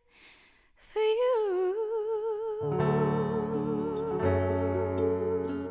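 A woman's voice, after a short pause, sings one long held note with vibrato that dips and settles. About halfway through, Rieger-Kloss grand piano chords and low bass notes come in underneath.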